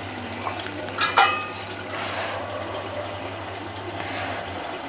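Biryani masala cooking in a pot, a steady wet sizzle and bubble, with one sharp ringing metal clink about a second in.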